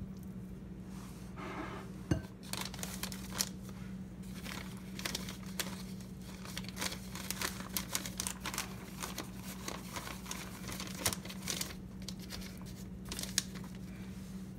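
Plastic zip-top bag crinkling and rustling as hands work a buttermilk-dipped chicken drumstick around in seasoned flour inside it, dredging it for frying. The crinkling starts about two seconds in and goes on in irregular crackles over a steady low hum.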